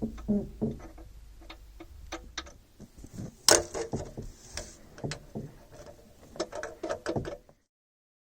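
Irregular metallic clicks and knocks of hand tools working on a marine starter motor, with one louder knock about three and a half seconds in; the sound cuts off abruptly near the end.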